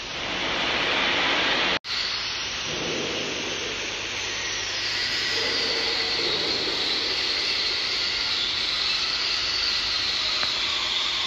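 Steady rushing, hissing noise with a faint high whistle running through it, cut by a brief dropout about two seconds in.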